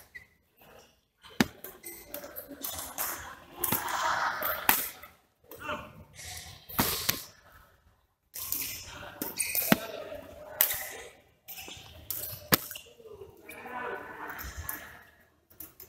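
Badminton rackets striking a shuttlecock in a rally: sharp smacks about one to two seconds apart, echoing in a large hall, with players' voices in between.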